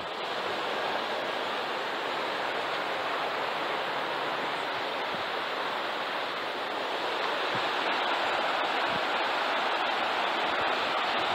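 Steady rushing of a small river running over rocks.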